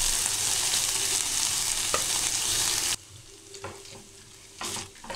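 Chopped ginger, garlic and green chillies sizzling loudly in hot coconut oil with popped mustard seeds. About three seconds in, the sizzle drops away abruptly to a quieter fry, and a wooden spatula stirs them with short scraping strokes against the pan.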